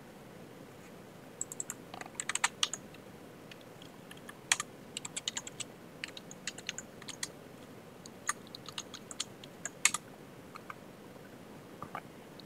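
Keystrokes on a computer keyboard: irregular clicking typing in short spells, with pauses between them.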